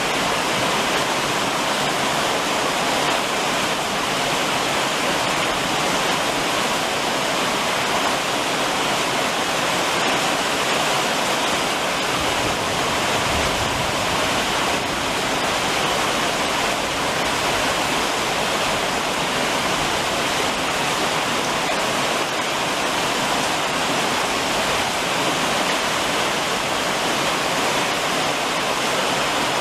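Rain falling steadily and drumming on a roof: a dense, even rushing hiss that does not let up or change.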